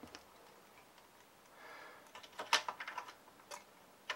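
Light clicks and taps of hands handling thin switch wires against the plastic case and circuit board of a Commodore 64. Mostly quiet for the first two seconds, then a quick cluster of sharp clicks, the loudest about two and a half seconds in, and one more click near the end.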